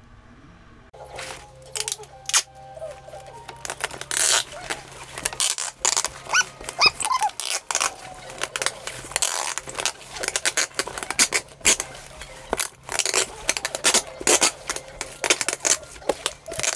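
Plastic shrink-wrap on a carton of copy paper crinkling and tearing as it is pulled open by hand, a dense run of crackles that starts about a second in. Music plays underneath.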